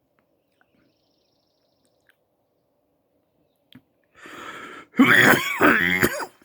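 Near quiet, then about four seconds in a man coughs and clears his throat: a softer rasp followed by a loud, rough cough lasting over a second.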